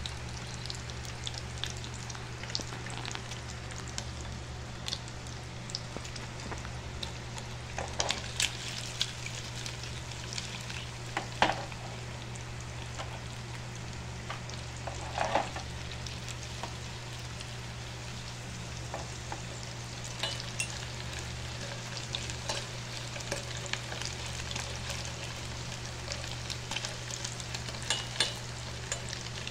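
Breakfast sausages sizzling in hot oil in a frying pan, with steady crackling and scattered spitting pops, a few of them louder. A steady low hum runs underneath.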